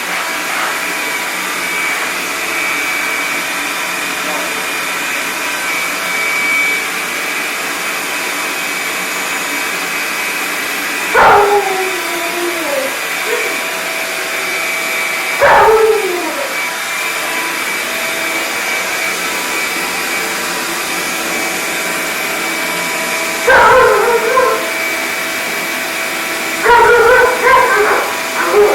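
Large shop vacuum running with a steady whine while an Alaskan Malamute vocalizes at it: two long falling calls about eleven and fifteen seconds in, then bursts of short yipping barks at about twenty-four seconds and again near the end.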